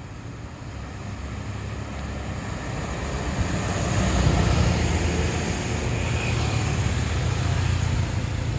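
Heavy diesel engine of a large bus coming closer, growing louder over the first four seconds, then running steadily close by with a deep rumble.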